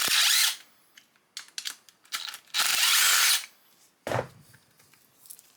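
Roll crimp die spinning in a pillar drill and pressed onto the mouths of .410 shotshells: two short rasping crimps, the second longer, with small clicks of handling between and a dull thud near the end.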